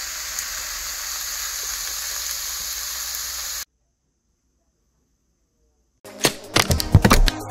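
Steady sizzle of octopus fried rice cooking in a frying pan on a gas stove, cutting off abruptly about three and a half seconds in. After a couple of seconds of silence, electronic dance music with a heavy beat starts near the end.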